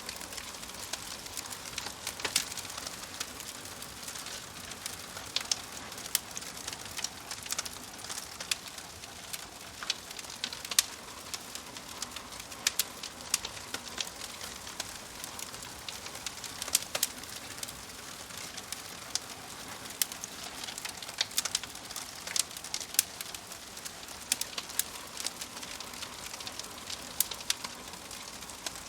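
Wood fire crackling in a fireplace: a steady soft hiss of burning logs with frequent irregular sharp pops and snaps.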